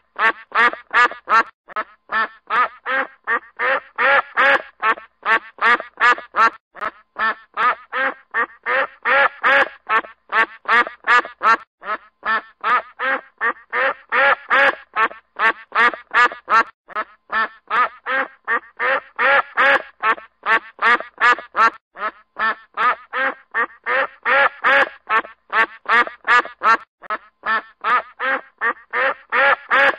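Duck quacking in a rapid, unbroken series of short quacks, about two to three a second, with the same pattern repeating about every five seconds as a looped ringtone.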